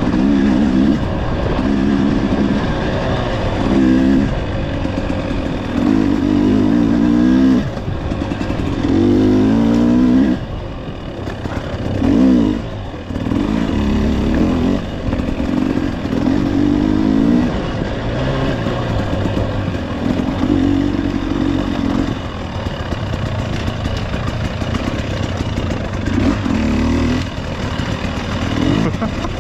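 Off-road vehicle engine climbing a rocky, rooty trail, revving up and dropping back every second or two as the throttle is worked over ledges and tight turns, with a brief easing off partway through.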